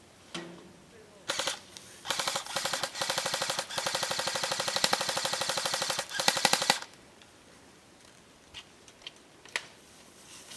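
Airsoft gun firing on full auto: a short burst, then a long string of rapid shots lasting about five seconds and ending in one more burst. A few single shots follow.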